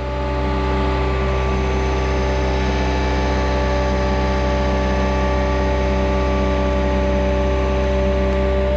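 Farm machine's diesel engine running steadily at constant speed while lifting bales on its spikes, a deep hum with fixed engine tones.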